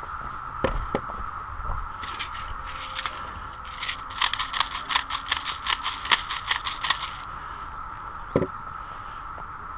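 A quick, uneven run of sharp scraping, crunching strokes, about four a second, for around five seconds, over a steady hum. A single thump comes near the start and another near the end.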